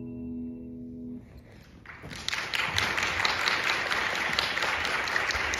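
The closing held notes of the performance music fade out about a second in. Audience applause breaks out about two seconds in and keeps going.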